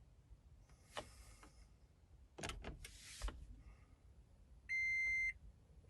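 A few rustling and knocking handling sounds, then near the end one loud, steady electronic beep about half a second long, the first of a series that repeats roughly once a second, from the Toyota Prius's in-cabin warning beeper.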